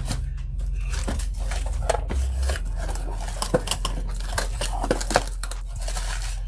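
Packaging being handled: plastic bags crinkling and cardboard scraping and knocking in irregular short rustles and clicks as speaker parts are lifted out of a box, over a steady low hum.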